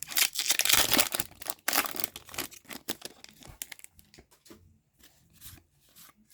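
Hockey card pack wrapper being torn open and crinkled, loud for the first two and a half seconds. After that come quieter scattered rustles and ticks of cards being handled.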